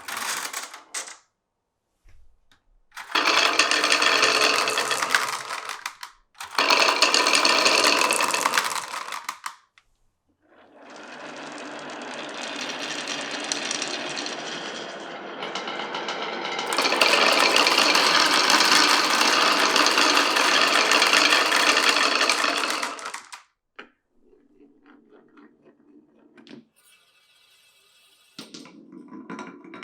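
Marbles rolling and rattling down a marble run in several runs of a few seconds each, the longest lasting about thirteen seconds, with fainter scattered clicks near the end.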